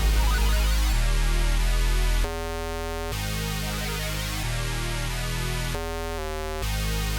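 Synthesizer melody loop in G-sharp minor at 137 BPM: sustained chords that change every second or so over a deep bass.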